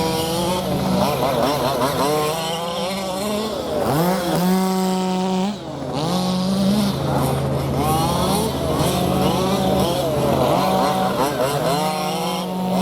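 Radio-controlled model car motors whining, rising and falling in pitch again and again as the cars speed up and slow down, over a steady low hum.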